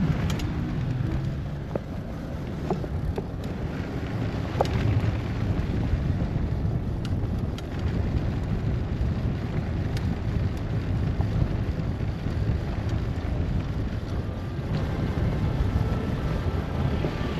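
Recumbent trike rolling over cobblestones: a steady low rumble and rattle from the tyres and frame, with scattered short knocks from the bumps.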